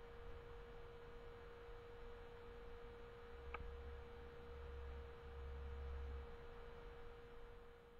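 A faint, steady electrical whine on one pitch. About three and a half seconds in there is a single click, followed by low rumbling for about three seconds.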